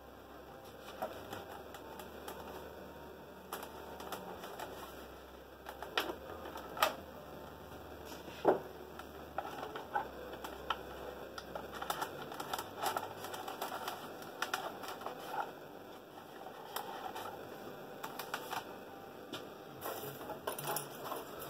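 Irregular clicks, taps and rustling from handling a foam RC airplane's parts and packaging as the wing is fitted to the fuselage.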